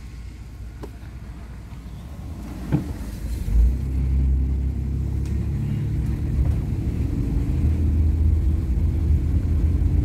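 Car driving on a gravel road, heard from inside the cabin: a steady low rumble of engine and tyres. A knock and a bump come about three seconds in, after which the rumble is louder.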